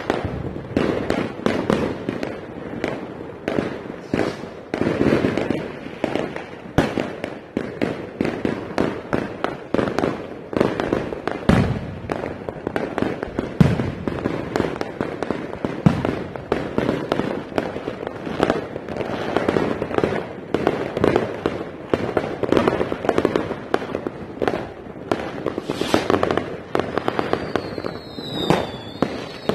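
Many fireworks going off at once around the houses: a near-continuous run of bangs, cracks and crackling with hardly a pause, and whistling fireworks near the end.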